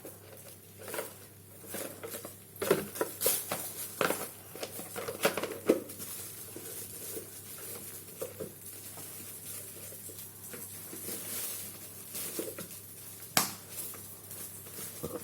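Scattered clinks and knocks of a lid being fitted onto a cooking pot, with one sharper knock near the end.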